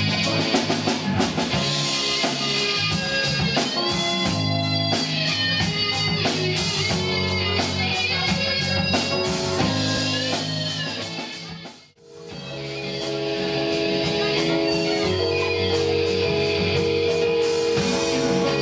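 A live progressive rock band plays: electric guitar leads with bent notes over bass guitar, keyboard and drums. About two thirds of the way through the music fades out completely, then fades back in with long held notes.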